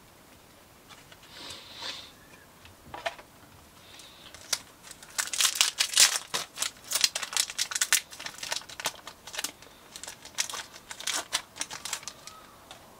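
Foil wrapper of a Japanese Pokémon card booster pack being crinkled and torn open: a dense run of sharp crackles about four and a half seconds in, loudest soon after, with a few softer rustles before it.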